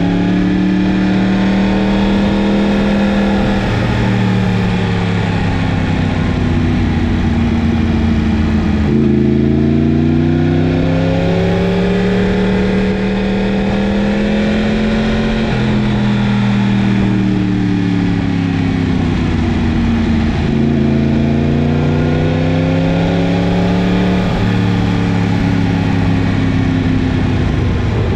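Yamaha MT-10's crossplane inline-four engine under way, its pitch climbing and falling as it accelerates and eases off through bends, with sudden pitch steps at gear changes every few seconds.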